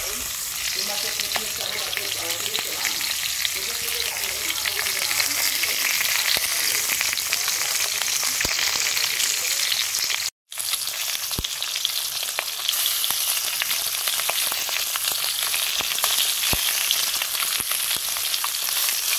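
Hilsa belly pieces sizzling steadily in hot mustard oil in an aluminium kadai, with scattered small pops. The sound drops out for a split second about ten seconds in.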